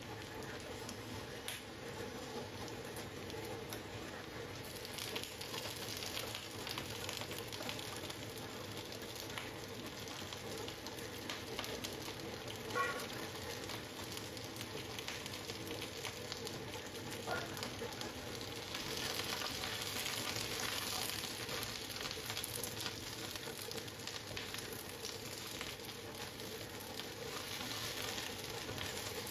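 Food sizzling and crackling in a frying pan while it is stirred, swelling louder twice. About 13 seconds in there is a sharp ringing clink, like a utensil striking the pan.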